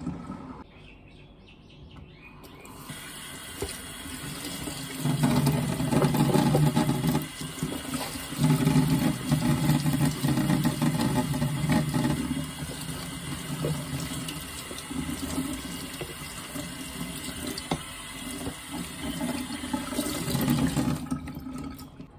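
Kitchen tap turned on a few seconds in and running into the sink, splashing louder at times as a plastic collapsible cutting board is rinsed under the stream. The water stops near the end.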